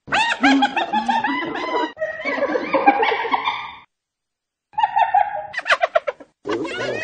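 Hyena giggling, the so-called laugh: rapid runs of high-pitched yelps that rise and fall. It comes in three bursts, the first about four seconds long, with brief silences between them.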